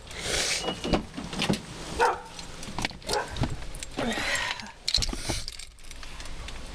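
Dog barking several times, set off by a person's sneezing.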